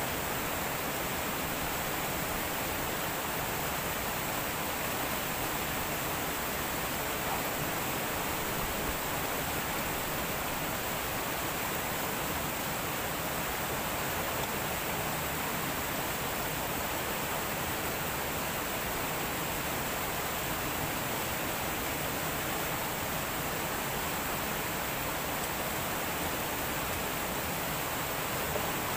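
Steady rush of a shallow stream flowing over rocks, an even noise that does not change.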